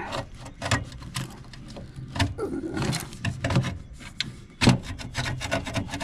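Small wire brush scraping in and out of the pressure-switch port on a furnace draft inducer housing, a run of irregular rasping strokes with one louder scrape near the end. The port is being cleaned of crusty deposits that may be choking the switch's pressure signal.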